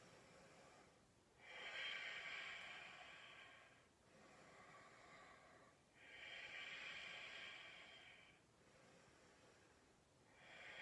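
A woman breathing slowly and audibly through a yoga forward fold: faint, hissy breaths about every two seconds, the stronger ones roughly every four to five seconds with softer breaths between.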